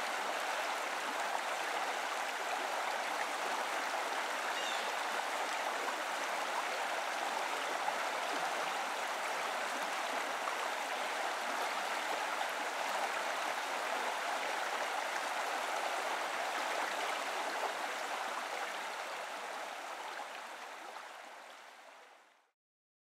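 A forest river's water running and babbling steadily over rocks, fading out near the end.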